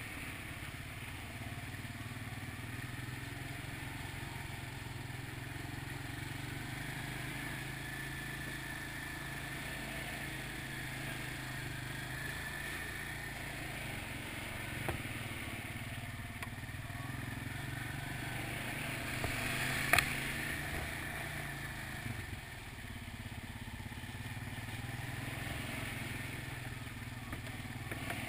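ATV engine running steadily at low trail speed, with light rattling and two short knocks, the sharper one about two-thirds of the way in.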